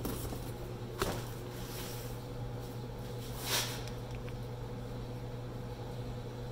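A tub of protein powder and its packaging being handled: a single light knock about a second in and a short rustle a couple of seconds later, over a steady low hum.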